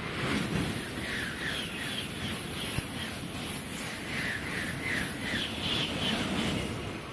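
Crows cawing in short runs of repeated calls, two bursts of several caws each, over a steady low rumble.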